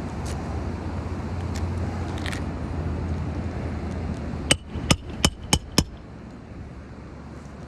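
Five quick hammer blows on a roofing snake, metal striking metal, driving a roofing nail into a reseated asphalt shingle about four and a half seconds in. Before them, wind noise on the microphone.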